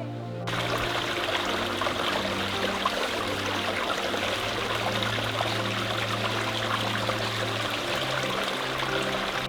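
Steady hiss of rushing water that cuts in abruptly about half a second in, with quiet background music underneath.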